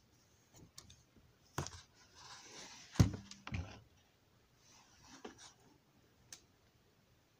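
Handling noise from a model railroad building's walls: light clicks and rustling as the piece is turned over on the workbench, with one sharp knock about three seconds in.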